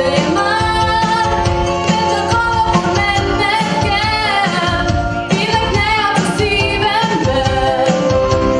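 A woman singing solo into a handheld microphone over instrumental accompaniment with a steady beat, with vibrato on her held notes.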